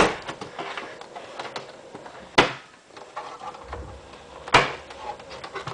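Handling of a Macintosh Performa 475's plastic case as it is opened: three sharp plastic clicks or knocks, one at the start, one about two and a half seconds in and one near the end, with rustling in between.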